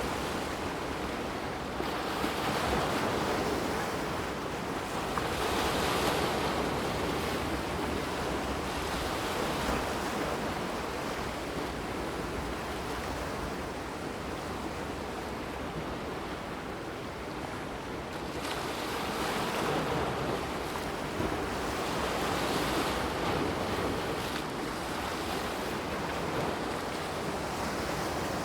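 A brook's water flowing steadily, an even rushing with slow swells in loudness every few seconds.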